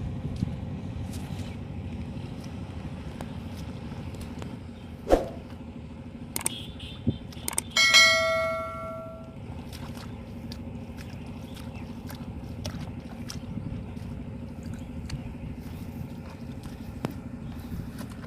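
A single loud metallic strike, ringing like a small bell and fading over about a second and a half, about eight seconds in. Steady outdoor background noise with scattered clicks, and a dull thump a few seconds before the ring.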